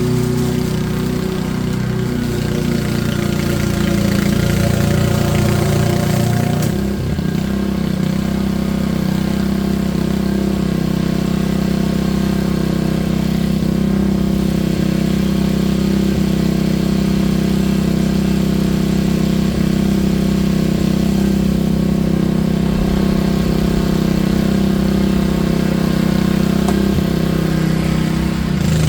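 Small engine of garden power equipment running steadily, its pitch shifting slightly about seven seconds in and then holding even.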